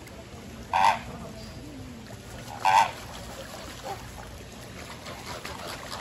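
A large bird calling twice with short, loud, goose-like honks about two seconds apart.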